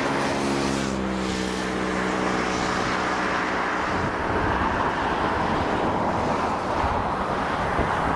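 Boeing OC-135B's four TF33 turbofan engines at takeoff power during the takeoff roll: a steady jet roar, with wind buffeting the microphone. A low droning hum fades out about four seconds in.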